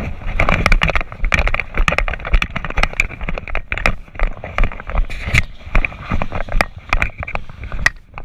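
Someone running on a concrete floor: rapid footsteps and rattling gear, with a busy run of knocks and sharp cracks. Rumble from movement and wind on the microphone underlies it.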